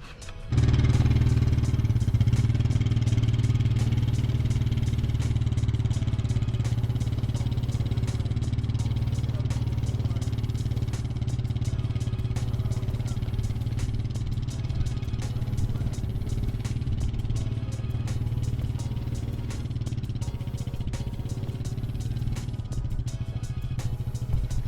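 An engine running steadily at a constant speed. It comes in abruptly about half a second in and holds the same pitch throughout.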